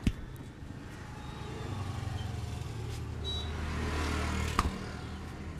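A motor vehicle passing by, its low engine hum swelling over a few seconds and fading near the end. Two sharp smacks stand out, one right at the start and one about four and a half seconds in.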